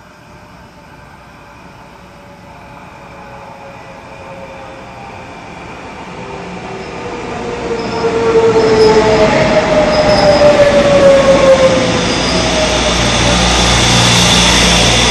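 A Taiwan Railways EMU500 electric multiple unit pulls into the station, growing steadily louder as it approaches and is loudest as it passes close by, about eight seconds in. Squealing tones slide down in pitch as the train brakes and slows, and a low steady hum remains near the end.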